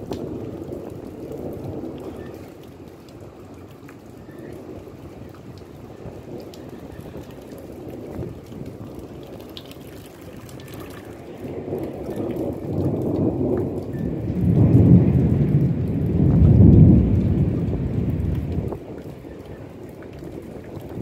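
Thunder from a nearby thunderstorm: a low rumble that builds about halfway through, is loudest a few seconds later and then dies away, over steady rainfall.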